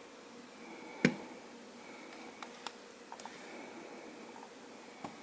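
Handling noises from a laptop being taken apart: one sharp knock about a second in, then a few faint light clicks, as the screen assembly is lifted off the base.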